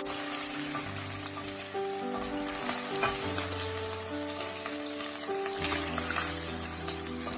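Chicken thigh pieces sizzling in hot oil in a nonstick wok on high heat, stirred and turned with a spatula, with a few light clicks of the spatula against the pan. Soft background music plays underneath.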